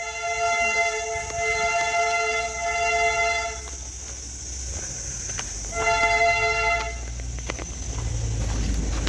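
Darjeeling Himalayan Railway toy train sounding its horn twice: a long steady chord of about three and a half seconds, then a short one of about a second. A low steady rumble runs underneath.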